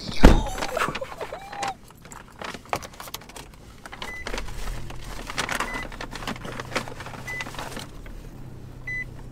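A brown paper takeout bag rustling and crinkling as hands dig into it and pull out a cardboard pizza box, with a sharp thud just after the start.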